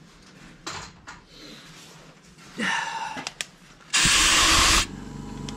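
Workshop handling noises and a few clicks, then a loud hiss of under a second that starts and stops sharply, followed by a steady machine hum.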